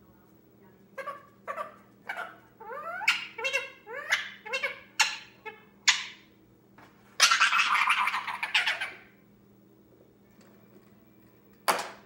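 Young Indian ringneck parakeet chattering: a string of short, garbled, speech-like calls with gliding pitch over about five seconds, then a harsh, noisy sound lasting about two seconds. A single sharp knock comes near the end.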